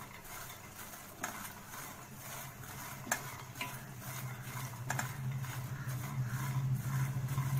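Spatula stirring makhana (fox nuts) frying in ghee in a steel pot: scrapes and sharp clicks against the pot. A low steady hum comes up under it and grows louder toward the end.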